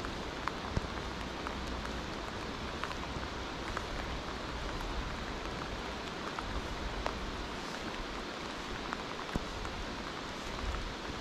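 Steady rain falling on a river's surface, an even hiss dotted with many small, sharp drop ticks.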